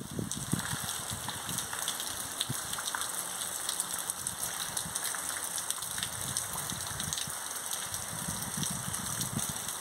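Heavy rain pouring steadily, a dense patter of drops. Low, gusty rumbles of wind on the microphone come in toward the end.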